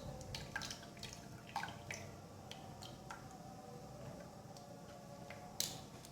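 Faint, irregular drips of liquid, a few a second, one a little louder near the end: strained lemon juice dripping through a sieve.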